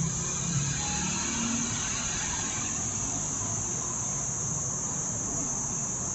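A steady high-pitched hiss with a weaker low hum beneath it, unchanging, with no distinct knocks or clicks.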